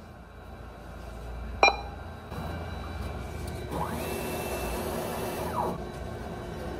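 ATM cash dispenser running as it picks and moves the banknotes: a motor whirring that rises in pitch about four seconds in and falls away again near the end. A short beep-click about a second and a half in, as an option is pressed on the touchscreen.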